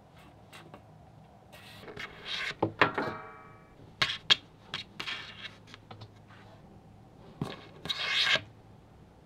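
Dried oleaster (jida) berries knocked about by a cat's paw on a hard tabletop: scattered taps, knocks and scrapes. There is one ringing knock about three seconds in and a short scraping rustle near the end.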